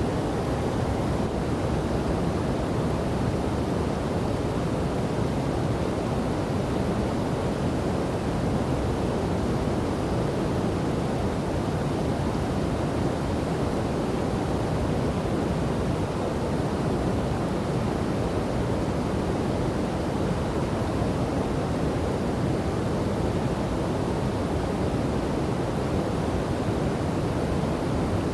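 Steady rushing of river water and a waterfall, an even, unbroken noise weighted toward the low end.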